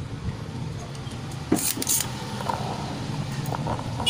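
Steady low engine-like rumble with a few sharp clicks and taps about one and a half to two seconds in as the TV's circuit board is handled.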